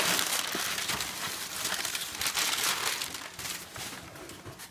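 Brown perforated kraft packing paper crumpling and rustling loudly as it is pulled out of a cardboard box, dying down near the end.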